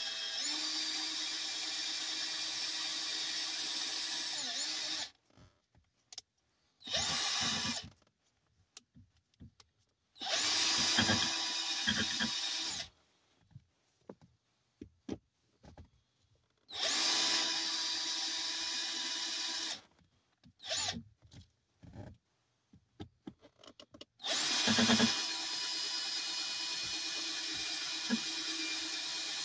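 Power drill running in five bursts as holes are drilled in the car, each burst a steady motor whine, the first and last about five seconds long and one very brief. Between bursts, small clicks and knocks.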